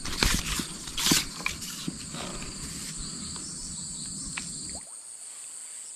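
Steady high-pitched insect trilling, likely crickets in the swamp, running throughout. Over it come several sharp knocks and rustles of handling in the first two seconds, and a low rustling noise that stops about five seconds in.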